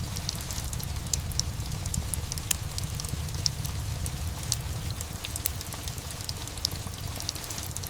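Steady rain mixed with a wood fire crackling: frequent sharp, irregular pops and snaps over an even rain hiss, with a steady low rumble underneath.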